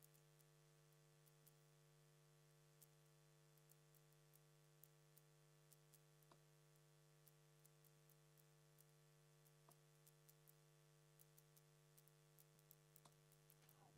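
Near silence: a faint steady electrical hum, with three very faint taps about three and a half seconds apart as darts strike the dartboard.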